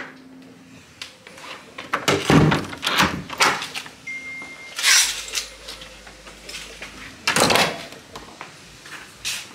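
A house door being handled, opened and shut, with several thuds and rattles. An electronic keypad deadbolt gives one short beep about four seconds in.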